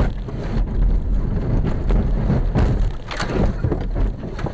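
Loud rumbling of a car running off the road and bouncing over rough roadside ground, with irregular heavy knocks and jolts as the body and suspension hit bumps.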